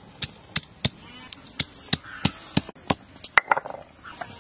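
Ginger and garlic being crushed on a sil-nora, a flat stone grinding slab, with its stone pestle: sharp stone-on-stone knocks about three a second, stopping shortly before the end.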